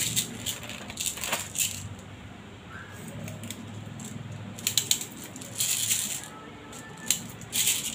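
Airsoft BBs clicking and rattling in short clusters as they are pushed one by one into a WE Glock 17 gas blowback pistol's magazine, five rounds loaded.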